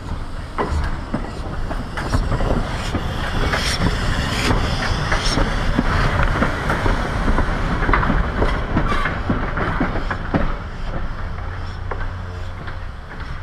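Replica 4-4-0 steam locomotive and tender rolling slowly past at track level, wheels clicking and clattering over the rails. The sound builds as it approaches, is loudest as it passes, and fades away near the end.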